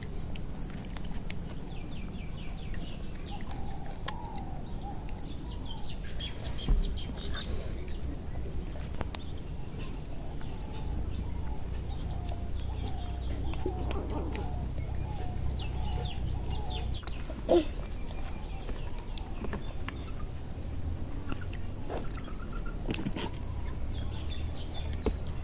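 Chickens clucking in the background over a steady low hum, with two sharp clicks, one about seven seconds in and one about ten seconds later.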